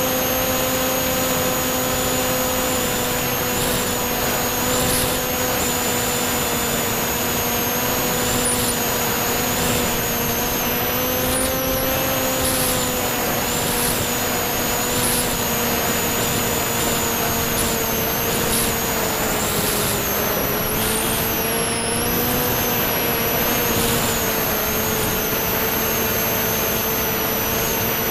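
Electric motor and propeller of a C1 Chaser FPV model plane in flight, heard from on board: a steady whine over the rush of air. The pitch dips slightly about twenty seconds in and then comes back up.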